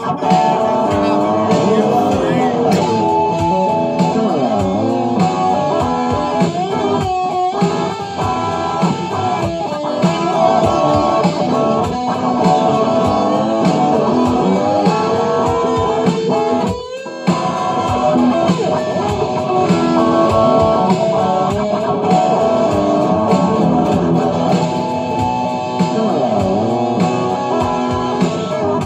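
Music: a guitar-led song with electric guitar, bass and a steady beat, breaking off briefly a little past the middle.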